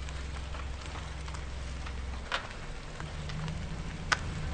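Car tyres rolling over gravel: a steady low rumble with scattered crunching and crackling of stones, and two sharper stone pops, one about halfway through and one near the end.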